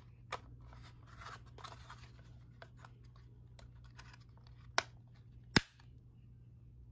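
Plastic housings being pressed and slid together by hand as an Awair Omni in-wall mount backpack is fitted to the surface mount: scraping and rubbing, a light click near the start, then two sharp plastic clicks under a second apart near the end as the parts snap home.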